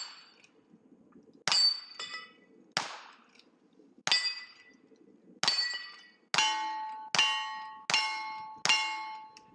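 Gunshots at steel targets, each crack followed by the ring of struck steel plate. Eight shots, over a second apart at first, then four quick shots about three-quarters of a second apart near the end.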